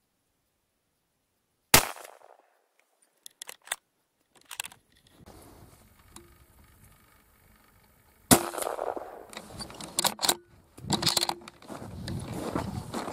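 Two rifle shots from a .223 Remington, about six and a half seconds apart, each a single sharp crack that dies away quickly. After the second come two quick sharp clicks and a stretch of rustling handling noise.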